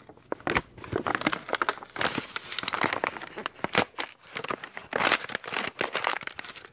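Plastic shipping bags crinkling and rustling as hands work them open, an uneven series of crackles.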